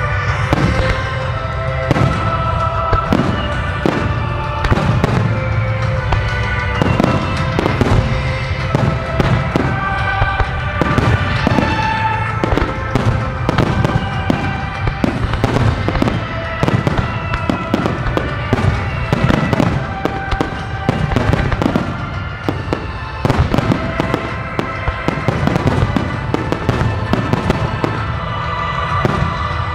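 Aerial firework shells bursting in rapid, irregular succession, a dense stream of booms and crackles, with music playing alongside that holds long notes.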